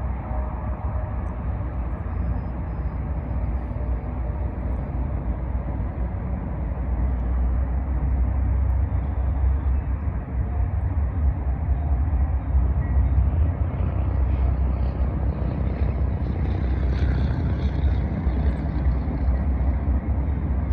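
Diesel freight train approaching, a deep steady engine rumble that grows louder about seven seconds in.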